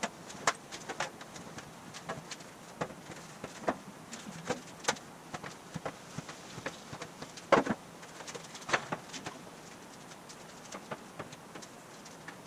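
Thin aluminum sheet panel being handled: irregular light clicks and knocks as the sheet flexes and is set against the car's frame for a test fit, with one louder knock about seven and a half seconds in.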